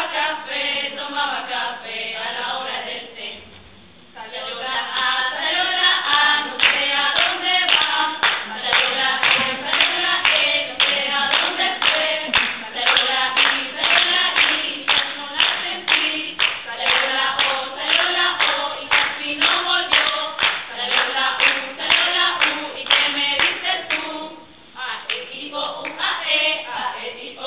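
A group of women singing together, with hand claps keeping time at about two a second from about four seconds in until shortly before the end.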